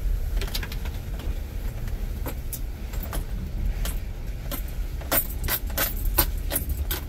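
A vehicle moving slowly along a rough dirt drive, heard from inside, with a steady low rumble and keys jangling and clicking, busiest a few seconds in.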